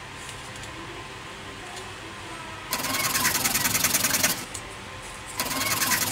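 A small piece of wooden popsicle stick is sanded by hand, rubbed quickly back and forth on sandpaper. There are two bouts: one starts a little before the middle and lasts about a second and a half, and the other comes near the end and lasts about a second.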